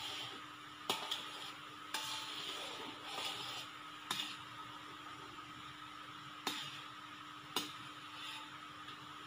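Palm sugar syrup sizzling and bubbling in a pot as it is boiled down to thicken, stirred with a spatula that knocks and scrapes against the pot about five times. A steady hum runs underneath.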